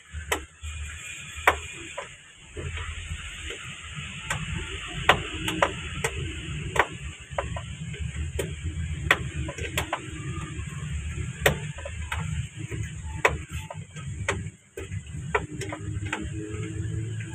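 Hand tools clicking and tapping against metal in an irregular series of sharp clicks while a radiator hose and its clamp are fitted in a Daihatsu Hijet 1000's engine bay.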